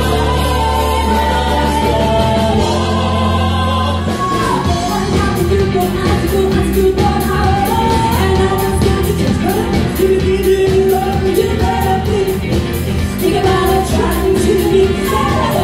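Pop music with singing. About four seconds in it changes abruptly to a new section with a steady beat.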